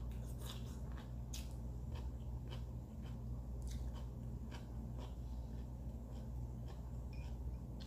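A person chewing crunchy food: many short, irregular crisp crackles over a steady low hum.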